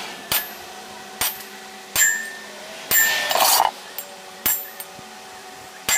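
Irregular metallic clinks and knocks, about seven in six seconds, with a longer scraping rattle about three seconds in, as steel parts are handled against the shell of an empty steel propane tank. A steady low hum lies underneath.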